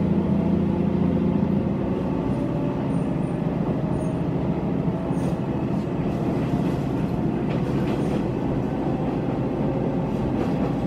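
Heisei Chikuho Railway diesel railcar heard from inside the car, pulling away from a station and picking up speed, its engine note rising slowly.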